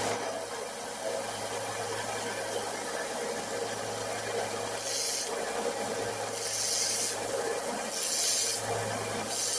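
Burrs being sanded off a steel lathe spindle with a small motor running steadily under a rasping hiss. From about halfway in, scraping strokes repeat roughly every second and a half.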